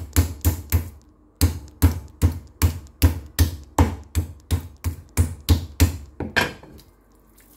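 A meat tenderizer mallet pounding raw chicken breast on a wooden cutting board, about three heavy thuds a second, with a short pause about a second in. The last few blows are weaker, and the pounding stops near the end. The chicken is being beaten flat to an even thickness so it cooks through tender.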